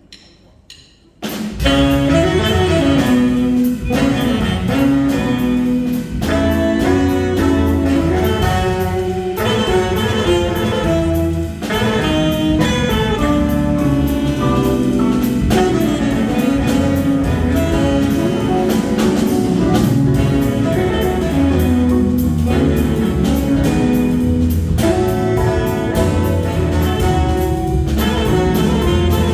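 Jazz combo starts playing about a second in, after a few soft clicks, with horns over bass and drum kit.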